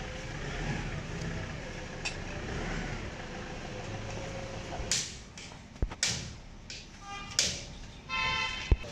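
Steady low street noise, then from about five seconds in, several scraping rubs and knocks as the bare Toyota 3B diesel engine block is shifted and tipped over on the ground. A short squeal comes just after eight seconds, and a single sharp metal clank, the loudest sound, comes right at the end.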